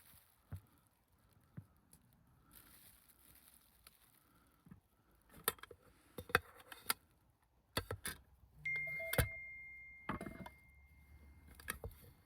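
Camp gear being handled, with scattered clicks and knocks, then a metal item struck so that it rings with one clear tone that slowly fades over about three seconds.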